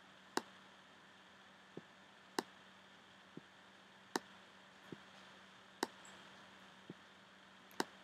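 Faint clicking of a computer's pointer button: about nine clicks, a sharp click alternating with a duller, softer one roughly every second, as the button is pressed and released for each brush stroke of handwriting drawn on screen. A faint steady hum underneath.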